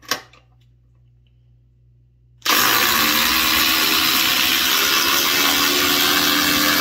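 Two cordless impact drivers, a Milwaukee M18 Fuel Gen 3 and a DeWalt DCF840 on a 6 Ah FlexVolt battery, hammering long screws into stacked lumber at the same time. They start together about two and a half seconds in and run loud and steady. A single sharp click comes right at the start.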